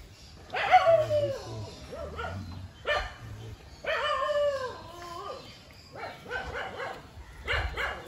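A dog barking: two drawn-out barks with a falling pitch, about a second and four seconds in, and shorter barks after them near the end.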